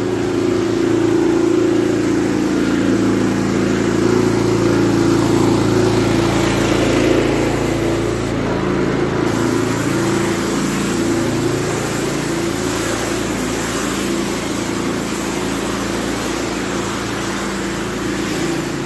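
Engine of a pressure washer running steadily at a constant pitch while the sidewalk is power-washed, slowly getting fainter.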